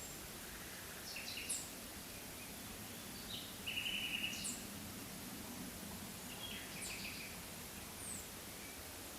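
Forest birds calling: scattered short chirps and high thin notes every couple of seconds, the loudest a short trill about four seconds in, over a steady background hiss.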